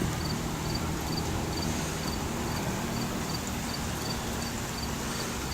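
Steady rain falling during a thunderstorm, heard as an even hiss. A faint, high chirp repeats about three times a second over it.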